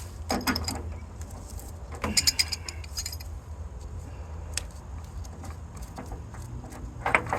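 Brass valves and fittings clinking and rattling against metal as they are worked off a water heater: a few sharp ringing clinks, with a cluster of them about two to three seconds in, over a steady low hum.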